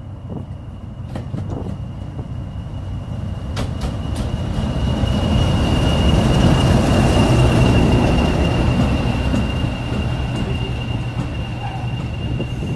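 English Electric Class 40 diesel locomotive running past close by with its coaches. The engine's rumble and the wheel noise swell to a peak as it draws level, then ease as the coaches follow. Over it all sits a steady, high turbocharger whistle, the sound that earned the class its 'whistler' nickname.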